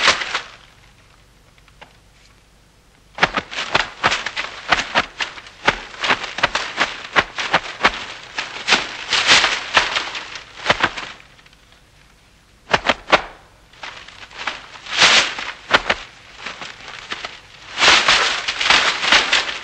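Paper dummies being struck and torn: dense crackling and ripping of paper mixed with sharp cracks of hits. It starts about three seconds in with a long spell of several seconds, followed by shorter spells with quiet gaps, and the loudest spell comes near the end.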